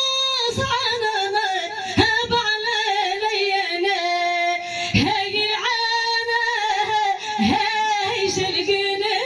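A woman singing solo into a microphone, a long melodic line in several phrases with wavering ornaments and held notes.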